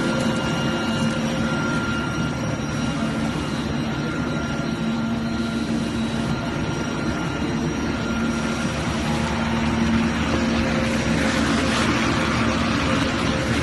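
Factory extrusion-line machinery running: a steady hum with several held whining tones, and a hissing rush that swells about eleven seconds in.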